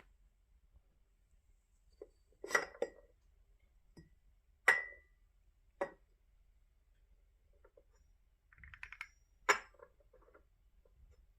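Small bells clinking: a handful of separate strikes a second or more apart, the loudest one near the middle ringing briefly on a single high note, with a short jingling rattle about three quarters through.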